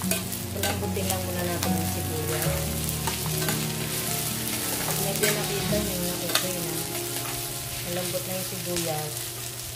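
Sliced onion, garlic and ginger sizzling in hot oil in a stainless steel pan while a metal spatula stirs them, with occasional sharp clicks of the spatula against the pan.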